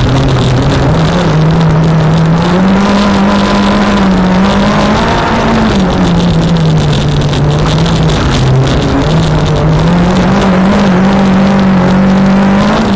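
Renault Clio 1.8 16v four-cylinder engine under hard driving, heard from inside the stripped cabin, its revs climbing a few seconds in, dropping back around the middle and climbing again, over a constant rush of road noise.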